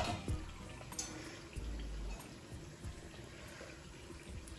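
Uttapam frying on a hot flat iron griddle (tawa): a soft, steady sizzle of batter and oil, with a few light clicks.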